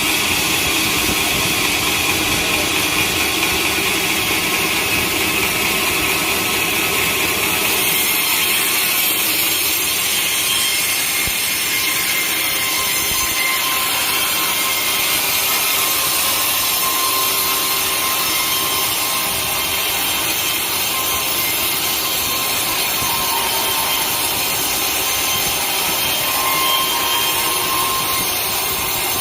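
Sawmill saw cutting through a large teak log: a steady, loud, continuous cutting noise whose tone shifts slightly about eight seconds in.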